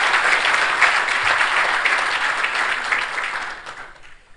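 Audience applauding steadily, then dying away over the last second.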